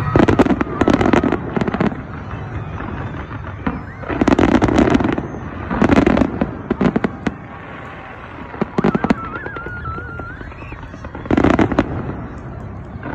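Fireworks display: volleys of bangs and crackling bursts every second or two, loudest at the start, about four seconds in and near the end. A short wavering whistle comes about nine seconds in.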